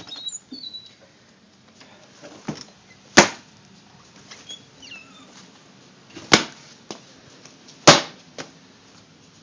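Three sharp knocks, each cutting off quickly, about three, six and eight seconds in, with a few fainter taps between them.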